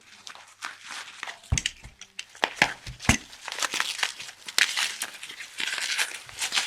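Plastic packing wrap crinkling and rustling as it is pulled off a camera by hand, with dull knocks of handling about one and a half and three seconds in.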